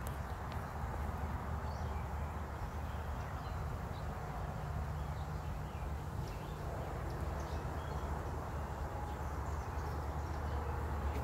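Outdoor garden background: a steady low rumble with faint, scattered bird chirps over it.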